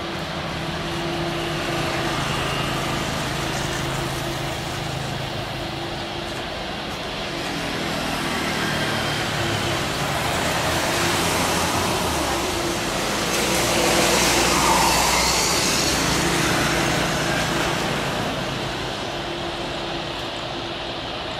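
Airbus A350-900's Rolls-Royce Trent XWB jet engines at takeoff thrust during the takeoff roll, a rushing roar that swells to its loudest about two-thirds of the way through. Road traffic noise runs underneath.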